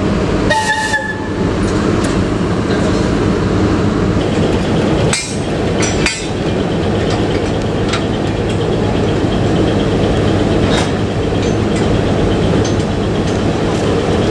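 VL10 electric locomotive standing with its machinery running in a loud, steady hum. Several sharp metallic clanks are heard, around five, six and eleven seconds in, and there is a brief high squeal near the start.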